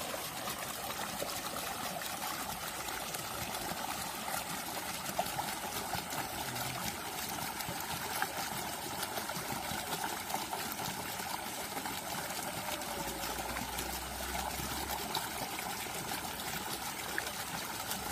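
Flowing water trickling steadily.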